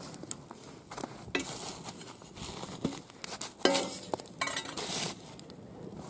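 Burning logs being prodded and shifted with a wooden stick in a metal fire bowl: knocks and scrapes of wood against wood and metal, loudest about a second and a half in and again between three and a half and five seconds in.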